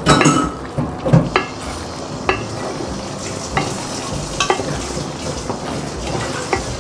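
A spatula stirs and scrapes a thick tauco sauce in a pot over low heat. The sauce sizzles steadily underneath, and the spatula scrapes and knocks against the pot about every second.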